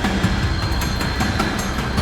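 Background music with a steady, busy beat.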